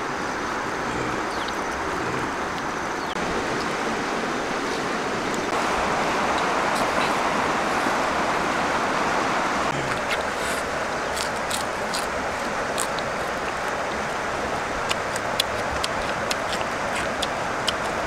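Steady rushing outdoor background noise, a little louder for a few seconds near the middle, with a scatter of sharp clicks through the second half.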